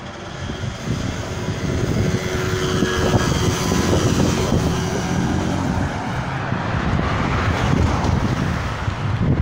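Road traffic going past, with engine and tyre noise that builds about a second in and holds, and wind buffeting the microphone.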